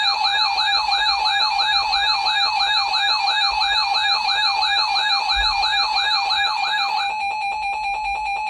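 Emergency alert attention tone heralding a severe thunderstorm warning: a steady electronic tone under a second tone that warbles up and down about two and a half times a second. The warble stops about seven seconds in, and the steady tone then cuts off abruptly.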